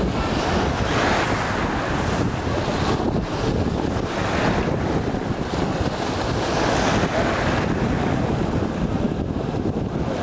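Sea surf breaking and washing around the shallows, rising and falling in several surges, with wind buffeting the microphone.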